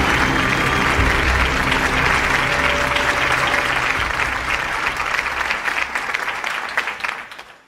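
Large theatre audience applauding, with background music under it in the first few seconds; the applause fades away near the end.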